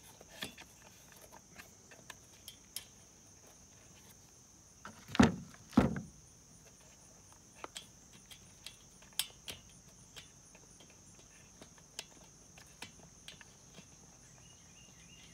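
Nuts and lock washers being threaded by hand onto the air filter housing studs of a Kawasaki engine: scattered small metal clicks and taps, with two louder knocks about five seconds in. A steady high-pitched hum runs underneath.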